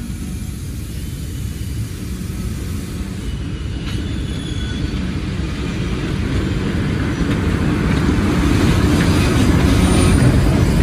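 ALCO S4 diesel switcher's engine running as it approaches at the head of a loaded coal train, growing steadily louder. Near the end the locomotive and first hopper cars roll past, their steel wheels clattering on the rail.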